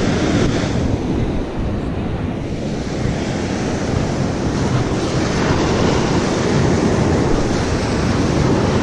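Ocean surf washing up and back on a sandy beach, a steady rushing, with wind noise on the microphone.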